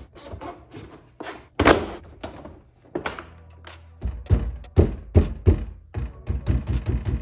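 A car door being struck by hand to find a rattle: a few separate knocks, then about four seconds in a fast run of loud, hollow thuds at about three to four a second.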